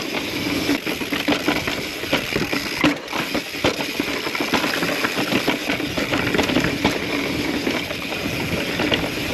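Mountain bike rolling over rocky slickrock trail: tyres rumbling over the rock and the bike rattling with a dense run of irregular clicks and knocks.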